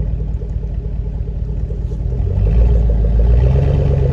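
Pickup truck engine running as the truck reverses over rough ground, revving up and growing louder about two and a half seconds in.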